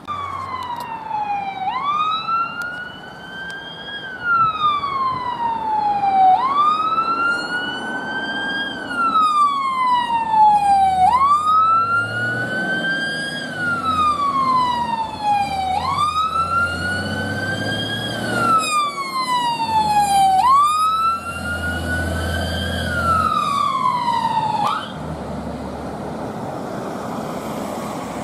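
Fire engine's wail siren sweeping slowly up and down in pitch, about five cycles of roughly five seconds each, over the low rumble of the truck's engine as it pulls away. The siren cuts off abruptly about 25 seconds in, leaving engine and road noise.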